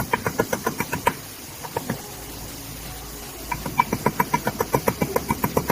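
Rapid light hammer taps on metal, about five or six a second with a short ringing note on each, easing off for a moment in the middle: a pin being tapped home in the floor grinder's planetary head.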